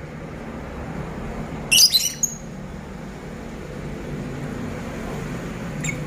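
Pet lovebird giving a quick burst of loud, shrill chirps about two seconds in, then one short chirp near the end, over a steady low background rumble.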